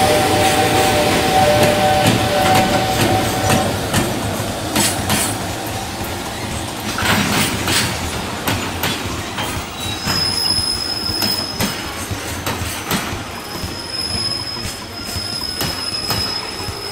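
EF210 electric locomotive and its container wagons rolling slowly past and away, with a steady whine while the locomotive is close for the first four seconds or so, then wheels clicking over rail joints and points. From about ten seconds in a thin high wheel squeal comes and goes as the wagons take the curve, the whole sound slowly fading.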